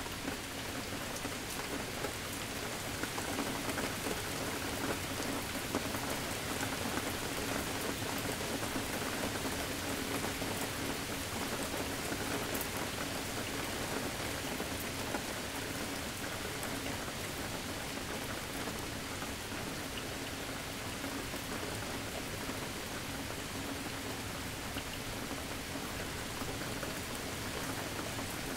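Steady rain falling, with a dense patter of individual drops ticking through it.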